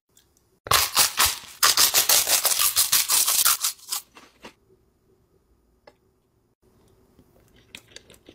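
Loud crunching from a giant purple chip being bitten and chewed: one crunch under a second in, then a dense run of crunches for about two seconds that dies away.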